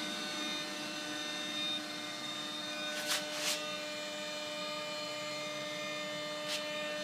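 JetCat P80-SE model jet turbine spinning on its starter with a steady multi-tone whine but not lighting: no fuel is being fed, which the owner puts down to a failed RPM sensor or its cable giving no RPM reading. Three short hissing bursts come about three, three and a half and six and a half seconds in.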